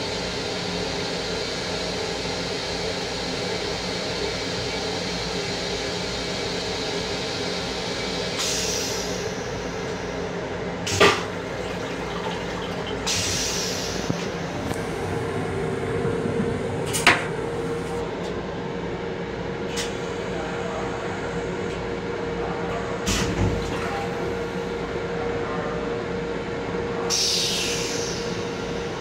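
Steady noise and hum inside the restroom of a Long Island Rail Road M7 railcar. A few sharp clicks or knocks come through it, the loudest about eleven and seventeen seconds in, along with three short hisses.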